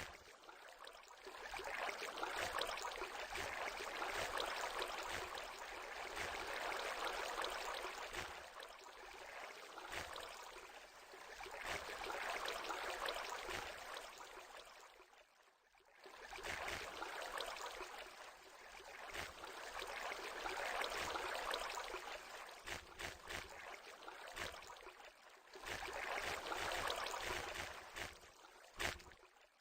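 A person snoring in deep sleep: long, hissing breaths that swell and fade again every few seconds, with a brief pause about halfway through.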